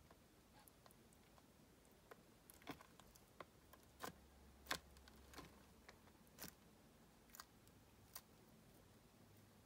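Faint irregular clicks and taps, a dozen or so, from small animals moving in a clear plastic tub: live crickets and a baby tegu lizard. The loudest tap comes a little under five seconds in.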